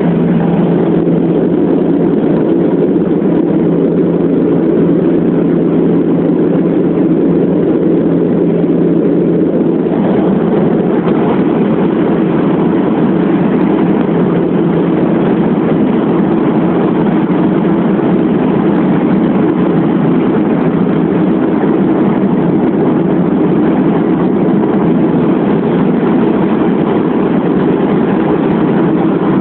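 Bombardier Dash 8 Q400's Pratt & Whitney PW150A turboprop engines and six-blade propellers running with a steady drone of low tones under a rushing hiss; about ten seconds in the hiss grows stronger.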